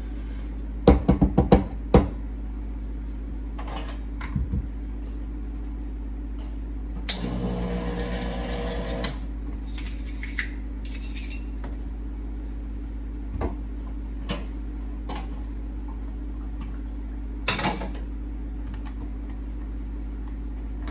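A metal espresso portafilter knocked several times in quick succession against a knock box to empty the spent coffee puck. About seven seconds in, the Rancilio Silvia's pump runs for about two seconds, flushing water through the group head into a cup. A few light clicks of cups and a scale being handled follow.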